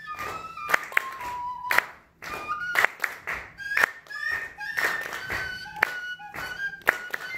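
Audience clapping together on the beat, about once a second, as the rhythm section for a small flute playing a tune of short stepping notes.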